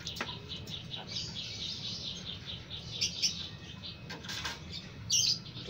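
Caged birds chirping in a fast, rapid run of short high notes, with a louder burst of calls near the end.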